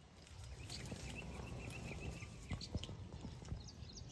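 Small birds chirping in short, high notes, with a quick run of chirps in the first two seconds, over a steady low rumble and a few soft knocks.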